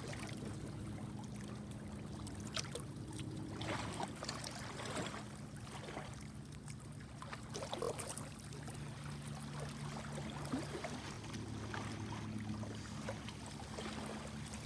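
Boat engine running with a steady low drone that shifts slightly in pitch, with scattered small clicks.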